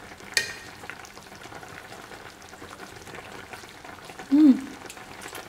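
Coconut-water braising liquid boiling hard in a pot, a steady bubbling and crackling as it reduces over high heat. A sharp click comes about a third of a second in, and a person's short hummed "mm" about four and a half seconds in.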